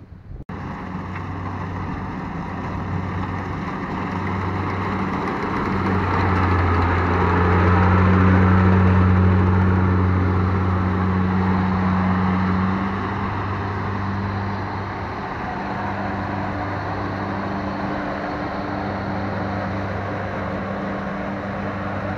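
Tracked rice combine harvester working nearby, cutting and threshing: a steady engine hum over a continuous noise. It grows louder to a peak about eight to twelve seconds in, then eases a little.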